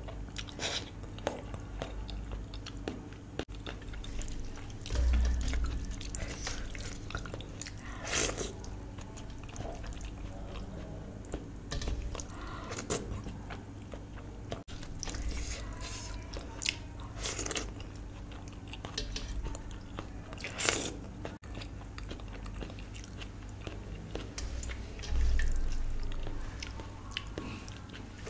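Close-miked eating: biting and chewing, with many wet mouth clicks and smacks. Two louder dull bumps come about five seconds in and near the end.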